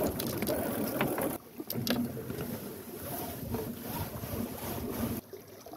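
Wind and water noise aboard a Wayfarer sailing dinghy, with a few clicks and rustles as lines are handled to rig the spinnaker.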